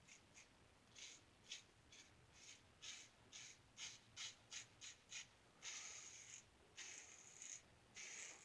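A 1901 New Gem single-edge safety razor scraping through lathered stubble on an across-the-grain pass. It makes a run of short, faint scratchy strokes, two or three a second, then a few longer strokes near the end.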